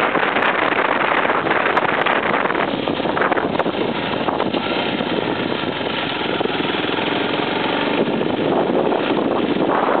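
Off-road motorcycle engine running as the bike climbs a gravel track, half buried in a loud rush of wind noise on the handlebar microphone. The rush eases a little in the middle and builds again near the end.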